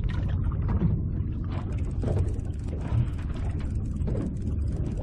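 Spinning fishing reel being cranked, its gears clicking rapidly, over a steady low rumble.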